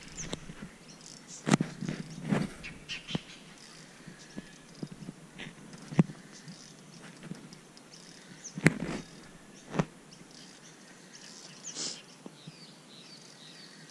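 A few scattered sharp knocks and clicks, loudest about halfway through, with faint bird chirps in the background.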